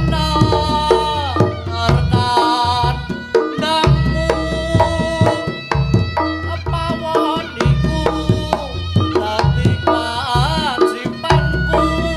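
Javanese reog music: hand drums beating a busy rhythm under a loud, reedy melody line that bends and wavers in pitch, over a deep repeating bass.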